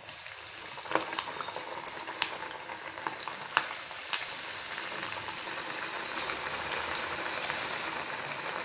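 Maddur vada dough patty deep-frying in hot oil, a steady sizzling hiss that builds over the first few seconds as the oil bubbles up around it, with a few sharp pops and clicks in the first half.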